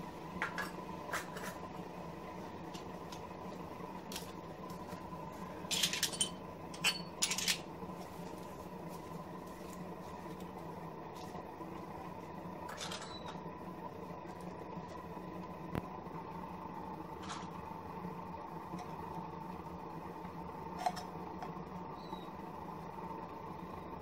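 Scattered metal clinks and clanks of tools and tongs being handled against metal, with a quick cluster of them about six to seven and a half seconds in. Underneath is a steady low hum with a faint constant high tone.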